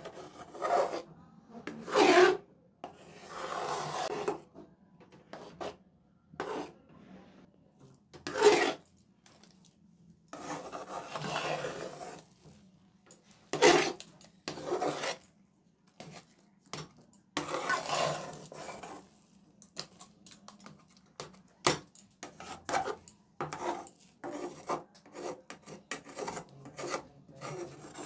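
A spatula stirring and scraping a thick milk-powder, milk and ghee mixture around a metal pan in irregular strokes, some short and sharp, some drawn out over a second or two, as the mixture cooks down into peda dough on a low flame.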